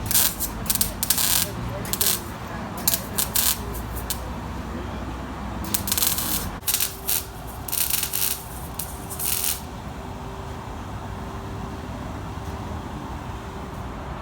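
Metal clinking and rattling of hand tools and exhaust hardware in bursts of sharp clicks, over a steady low rumble.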